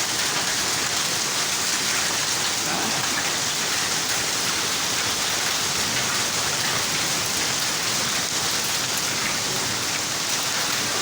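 Heavy rain mixed with hailstones pelting down on surfaces, a steady dense hiss with scattered small ticks.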